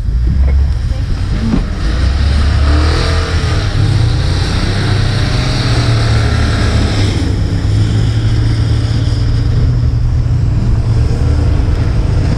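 Chevrolet Silverado pickup revving hard as it tries to pull a travel trailer through deep snow, its wheels spinning and throwing snow: the truck is struggling for traction. The revving swells and wavers in pitch from about two to seven seconds in, then settles to a steadier drone.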